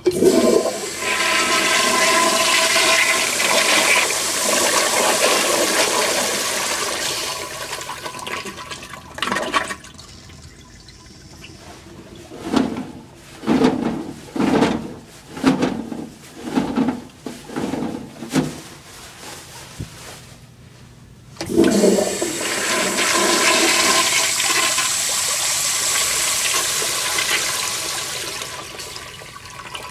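American Standard Afwall flushometer toilets flushing: a loud rush of water that tapers off after about eight seconds, then a run of pulsing gulps as the bowl drains. A second loud flush starts about 21 seconds in and fades toward the end.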